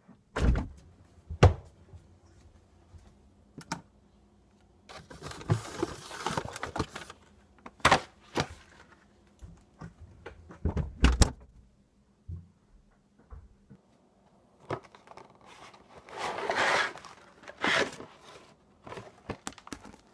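Household handling noises: a scatter of sharp knocks and thuds as things are picked up and set down, with two stretches of rustling in between.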